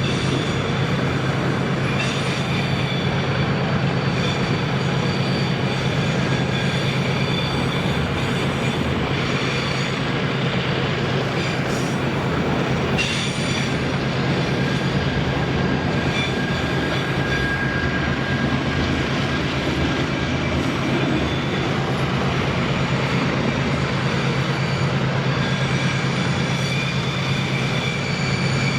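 Freight train wagons rolling past steadily on the rails, with high-pitched wheel squeal coming and going throughout.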